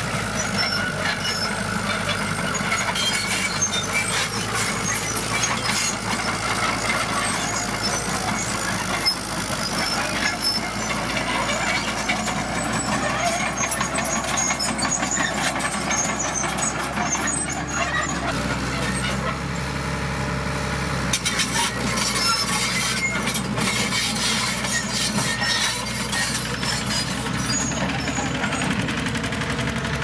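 Komatsu D41PX crawler bulldozer's diesel engine running under load as it pushes dirt and rock. Its steel tracks and the rubble give frequent clanks and rattles over the engine, whose pitch shifts about two-thirds of the way through.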